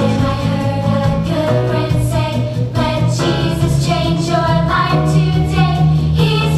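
A Christian song about going to heaven: a sung melody over instrumental accompaniment with a steady bass.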